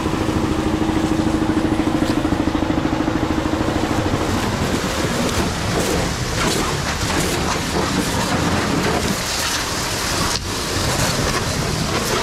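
Pressure washer at work on a jeep: the pump's steady, pulsing hum stops about four and a half seconds in, leaving the hiss and spatter of water on the body.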